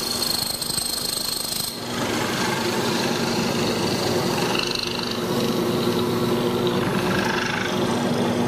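Drill press running with a hollow-chisel mortising attachment, the auger and square chisel boring a square hole into wood; the sound grows fuller about two seconds in.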